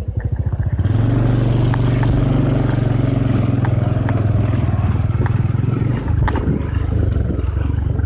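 Motorcycle engine pulling under load on a rough track. Its note rises about a second in and then holds steady, with a few short knocks over it.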